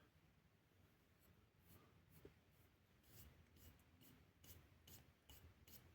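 Near silence with a series of faint, short scratching and rubbing sounds, more frequent in the second half.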